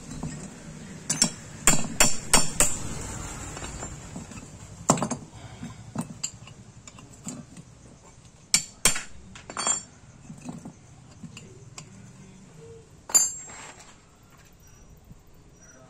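A steel wrench knocking and clinking against a small motorcycle engine's finned, air-cooled cylinder head during teardown. There is a quick run of sharp metallic knocks in the first three seconds, a few more between about five and ten seconds, and a last one near the end.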